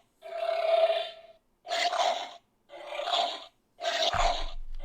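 Power Rangers Dino Fury Morpher toy playing its punch sound effects through its small speaker: four short noisy hits, about one a second, with brief silences between.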